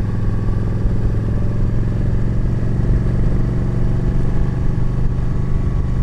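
Yamaha V Star 1300's V-twin engine running at a steady speed while riding, with wind and road noise.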